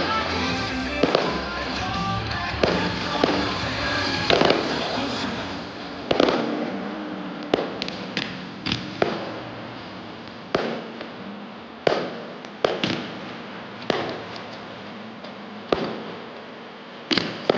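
Aerial fireworks going off: sharp bangs, each with a decaying echo, about one a second, then a quick cluster of bangs near the end. Music over loudspeakers plays under the first few seconds and then fades away.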